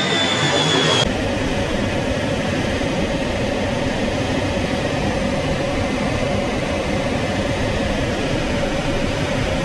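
B-52 jet bomber passing overhead, its engine whine growing louder and sliding slightly down in pitch, cut off about a second in. The rest is a steady rush of airflow and engine noise inside the bomber's cockpit in flight, with a faint steady drone under it.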